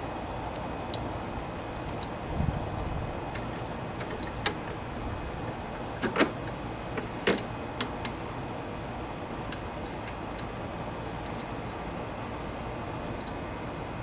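Scattered small metallic clicks and rattles of thin steel control-cable ends and their fittings being handled and seated on a push lawnmower's handle, irregular and a few seconds apart, the sharpest a little after the middle, over a steady low background rumble.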